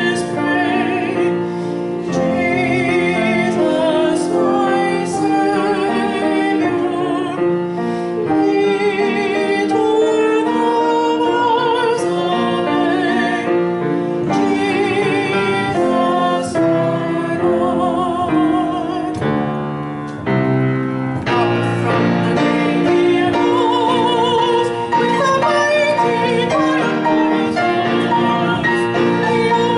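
A soprano singing a hymn in a trained, operatic style with a strong vibrato, accompanying herself on the piano.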